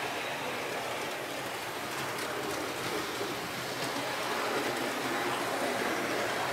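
Model diesel locomotive, an LS-Models Bm 6/6, running along layout track: a steady rolling rumble and hiss from its motor and wheels on the rails, with a few faint clicks over rail joints and points.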